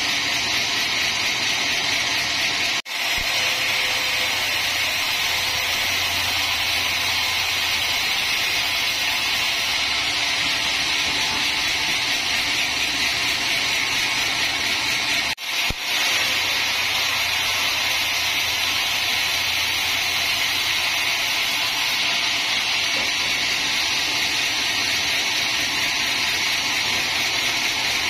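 Large band sawmill blade ripping lengthwise through a teak log, a steady high-pitched hiss of the blade in the wood over the run of the saw's drive. The sound cuts out for an instant twice.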